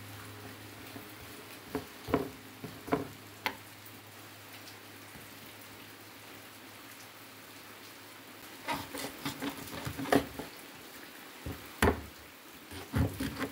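Large kitchen knife chopping on a round wooden chopping board: a few knocks about two to three and a half seconds in, then a quicker run of knocks from about nine to twelve seconds, over a steady soft hiss.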